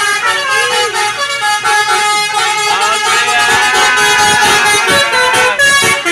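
Bus 'telolet' musical horns playing tootling multi-note melodies, several tones sounding together, with stepping and occasionally sliding pitches.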